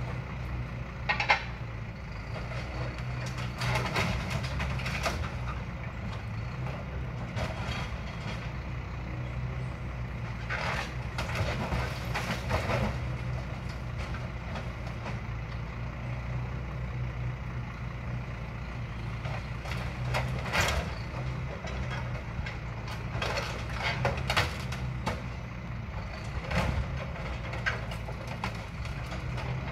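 Truck engine running steadily to work a truck-mounted grapple crane, with scrap metal from a dismantled old ZIL fire engine clanking and scraping now and then as the grapple picks it up and drops it into a container.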